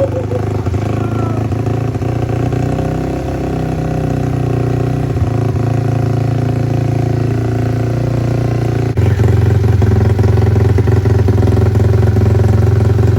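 Kawasaki KLX110L pit bike's single-cylinder four-stroke engine, freshly fitted with a Tbolt 143 big bore kit, running steadily on its first start. About nine seconds in it abruptly becomes louder.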